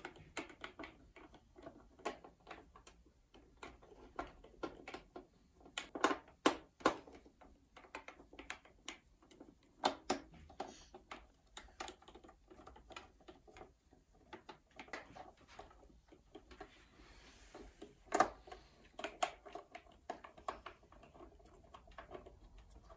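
Screwdriver backing screws out of the plastic base of a Marantz TT 451 turntable: irregular small clicks and ticks of the driver tip, screws and case, with a few louder clacks.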